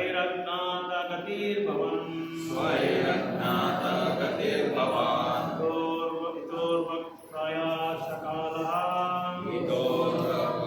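Sanskrit prayers chanted in a slow melody, each syllable held on a steady note, in phrases of a few seconds with short breaks for breath.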